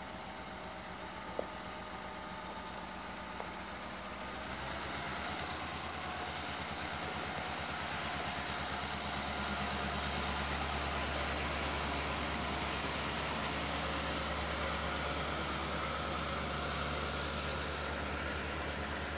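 Diesel locomotive engine running as the train draws near, getting louder about four seconds in and then holding steady with a low rumble. There is a short sharp click about a second in.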